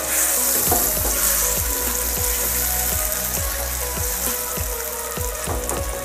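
Frozen green peas and onion-tomato masala sizzling in hot oil in a nonstick pan, with a spatula stirring them. Background music with a steady beat of about two thumps a second plays underneath.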